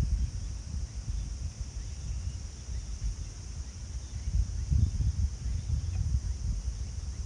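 Strong wind buffeting the microphone: an uneven, gusty low rumble, over a faint steady high hiss.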